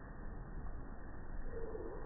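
Slowed-down, pitched-down audio from a phone's slow-motion recording: a steady low rumbling noise, with a brief faint deep drawn-out tone about a second and a half in.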